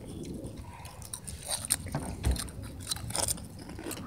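Several people crunching and chewing crunchy chips (Takis and lime-flavoured Lay's), a string of short crisp crunches, with one dull thump a little past halfway.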